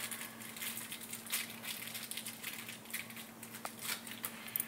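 Faint scattered clicks and rustling as small mounting screws are handled and picked up by hand, over a faint steady hum.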